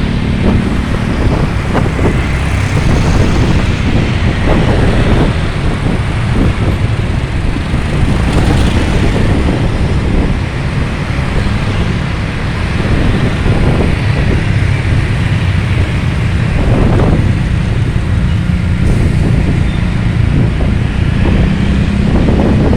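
Loud, steady vehicle engine and road noise, a low rumble with short irregular surges.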